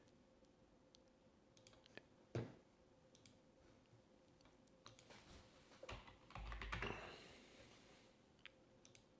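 Faint mouse clicks and computer keyboard typing, with a short run of key taps about five to seven seconds in, over a near-silent room. A soft muffled noise comes along with the taps.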